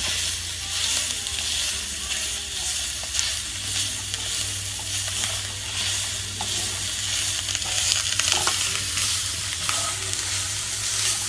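Stir-fried pancit noodles with shredded vegetables sizzling in a wok while a spatula stirs and tosses them, with a few light scrapes against the pan. A steady low hum runs underneath.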